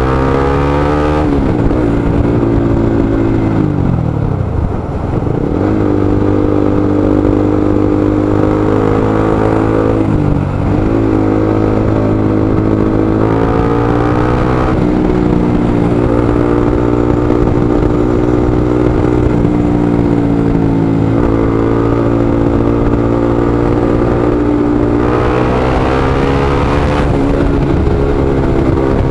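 A motorcycle engine running under a rider, its pitch rising and falling as the throttle is opened and eased off, dropping sharply about five and ten seconds in before climbing again.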